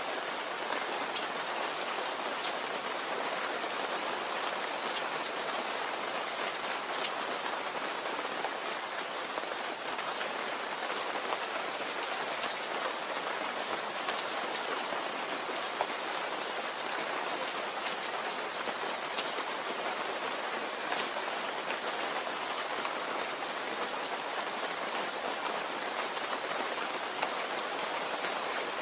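Steady rain falling on a surface, an even hiss with many individual drops ticking through it.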